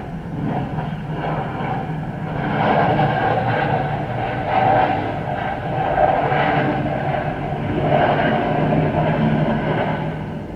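Boeing 737-800 jet airliner passing with its CFM56 engines running. The jet noise swells about two seconds in, stays strong and uneven for several seconds, and fades near the end over a steady low hum.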